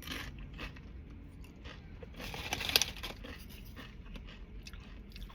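Close-up eating sounds: thin tortilla chips being bitten and chewed with salsa, crunching in a short burst right at the start and a louder cluster of crunches about two to three seconds in.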